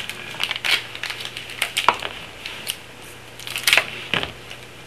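Hockey trading cards being handled and flipped through by hand, with irregular light clicks and rustles as the cards slide and snap against each other. A faint steady hum runs underneath.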